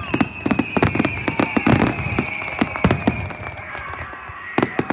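Aerial fireworks going off in a fast, dense run of bangs and cracks, several a second, with a long high whistle slowly falling in pitch through most of it. The bangs thin out briefly and pick up again near the end.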